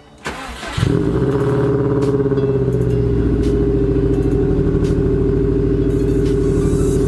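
2002 Subaru WRX's turbocharged flat-four engine starting: a brief crank, catching under a second in, then running at a steady idle.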